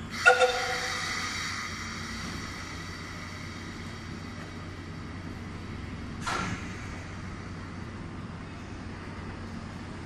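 Deki 507 electric locomotive moving slowly toward its coupling, with a steady low hum. Near the start a sudden loud ringing tone fades over about a second and a half, and a shorter, quieter burst comes about six seconds in.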